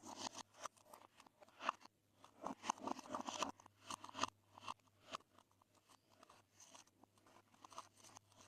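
Glossy slime being mixed and squeezed by hand, making quick sticky clicks and small pops. The crackling is densest in the middle, then thins to sparse, faint clicks.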